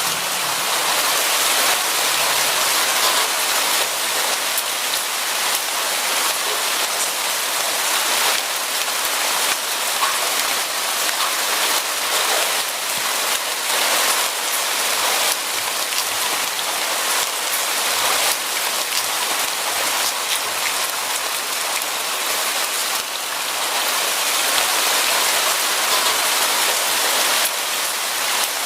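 Steady heavy rain falling on a surface, a dense even patter with many fine drop impacts.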